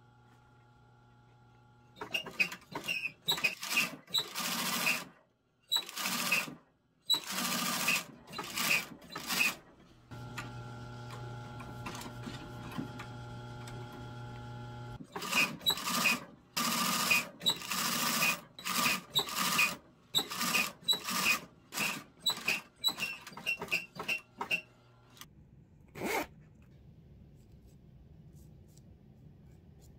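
Cylinder-arm industrial sewing machine stitching a zipper onto fabric in many short start-stop runs of a second or less. Between the runs, for a few seconds, the motor hums steadily while the needle is stopped.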